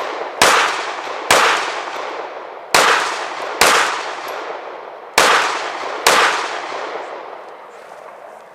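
Six pistol shots fired in three pairs, the two shots of each pair a little under a second apart, each shot trailing a long fading echo.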